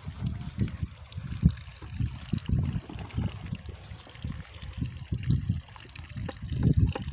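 Water from a diesel pump set gurgling and gushing through a lay-flat plastic discharge hose, coming in uneven surges.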